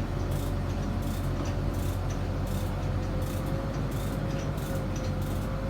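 Crane engine running steadily under load, a low drone with a steady whining tone on top, while the crane lifts.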